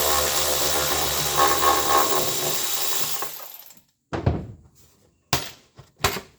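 Power drill spinning an 11 mm socket to back out a bolt, running steadily for about three and a half seconds before winding down. Three short knocks follow near the end.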